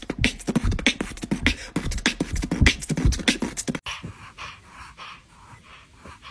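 A rapid string of sharp smacks and knocks lasting nearly four seconds, stopping abruptly. Then a black-and-white kitten makes faint, quick breathy sounds with its mouth open, about two or three a second.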